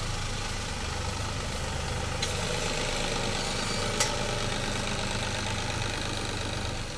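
Farm tractor's diesel engine running steadily as it pulls a wheel hay rake, with two sharp clicks about two and four seconds in.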